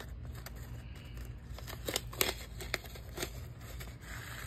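A paper seed packet being opened and handled, with a few sharp, crisp clicks about two to three seconds in.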